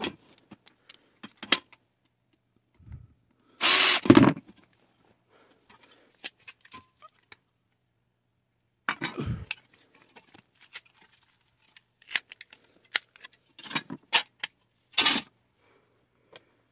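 Thin sheet-metal panels from a butane camp-stove burner being handled: scattered clinks and scrapes of metal, with louder clattering about four seconds in, around nine seconds, and again near the end.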